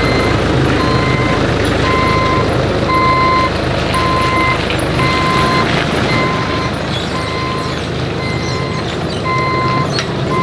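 Clark forklift's engine running under load as it lifts and moves, with its warning beeper sounding a steady series of beeps, about one a second.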